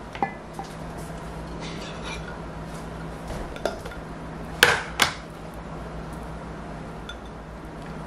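Kitchen handling sounds: a wooden spoon knocking against a ceramic serving bowl, then a plastic food container and its lid being handled, with two sharp clicks about half a second apart midway, the loudest sounds. A steady low hum runs underneath.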